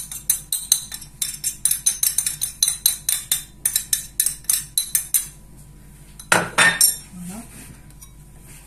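Rapid clinking of a small ceramic spice bowl being tapped to knock ground spices out, about three or four sharp clinks a second for some five seconds. A single louder scrape comes about two-thirds of the way in.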